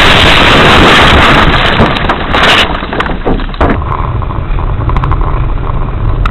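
Loud, steady rushing noise of a moving vehicle, with wind and road noise on the microphone. About two and a half seconds in it cuts abruptly to a lower vehicle rumble with scattered sharp clicks.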